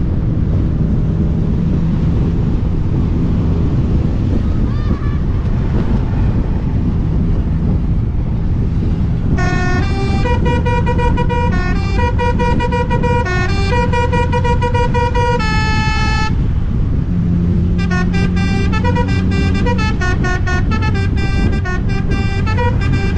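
Bus engine running with road noise. About nine seconds in, a multi-tone telolet (basuri) bus horn starts playing a tune of quickly changing notes for about seven seconds. After a short pause it plays again, with faster note changes, until near the end.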